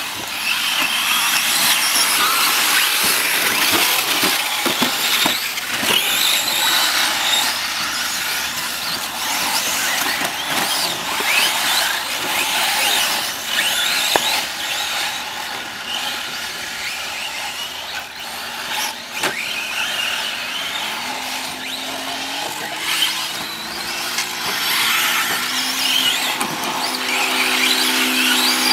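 Several electric 1/10-scale RC short course trucks racing on a dirt track: a high-pitched whine from their brushless motors and drivetrains, rising and falling as they accelerate and brake, with tyres scrabbling on loose dirt. A steadier, lower hum joins in for the last several seconds.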